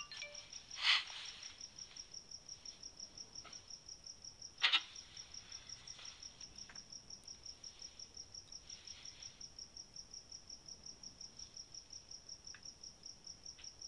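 A cricket chirping steadily in a high pitch, about five chirps a second. A soft rustle about a second in and a sharp click near the five-second mark stand out over it.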